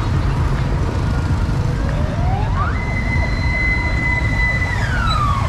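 A siren wailing: it rises about two seconds in, holds a high note, then falls away near the end, over a steady low rumble of street traffic.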